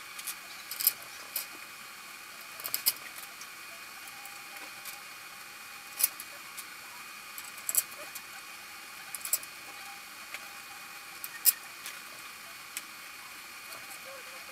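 Light metal clicks and taps, about a dozen at irregular intervals, from hand work on the generator cover of a Suzuki DR-Z400 engine as the cover and its bolts are fitted, the sharpest about two-thirds of the way through.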